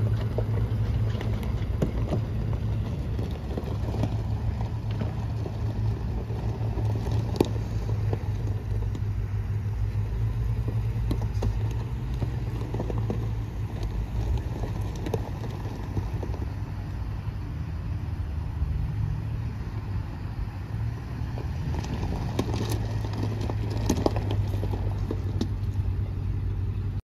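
A 2005 Chevrolet Avalanche's V8 engine running steadily as the pickup drives slowly across a gravel lot, with its tyres crunching and popping over loose gravel.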